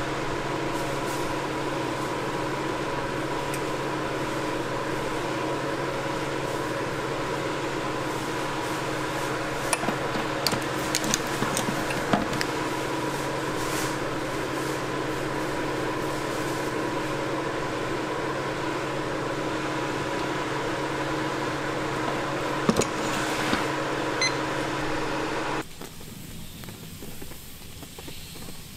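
Steady hum of commercial kitchen appliances and ventilation around a waffle iron, with a few light clicks and clinks of utensils. The hum drops noticeably quieter near the end.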